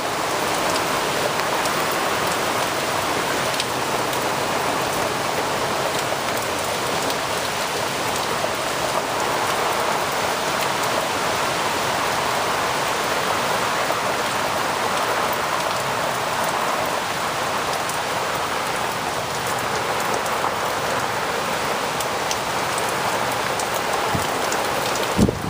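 Heavy rain falling steadily, a dense even patter of drops. Right at the end a gust of wind hits the microphone with a low rumble.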